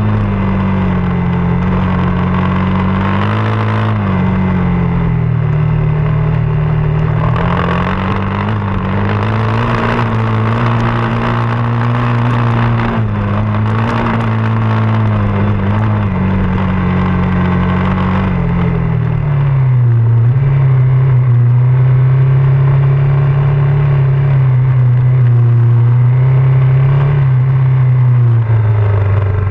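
Off-road motorcycle engine running under load, its pitch rising and falling as the throttle is opened and closed. About two-thirds of the way through it drops to a lower, steadier note.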